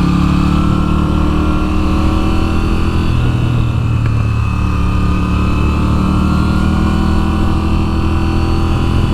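2022 Moto Guzzi V7's air-cooled V-twin engine under way, its revs climbing, dropping at a gear change about three to four seconds in, then climbing again.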